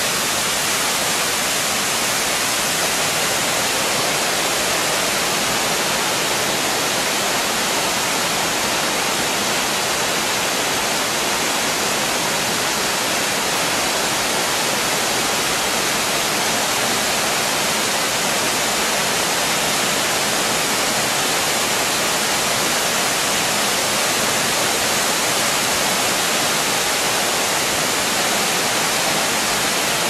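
A small waterfall pouring down a rock face and cascading over boulders, a loud, steady rush of water.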